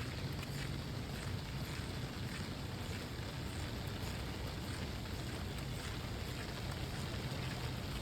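Steady rain, heard as an even, continuous hiss with faint scattered ticks.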